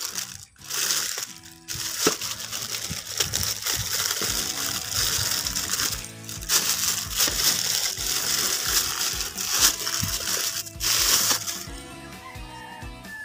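Plastic courier pouch crinkling and tearing as it is ripped open by hand. The crinkling stops near the end, leaving background music.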